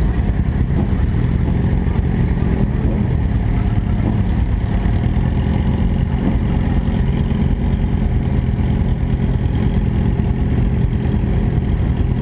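Vehicle engines idling steadily, a continuous low engine rumble with no revving.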